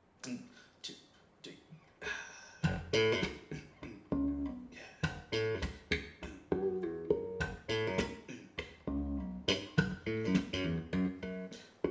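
Jazz-fusion music with electric guitar, bass and drums, played back through a pair of Gauder Akustik Capello 40 bookshelf loudspeakers. It opens with a few sparse plucked notes and hits, and the full groove comes in after about two and a half seconds.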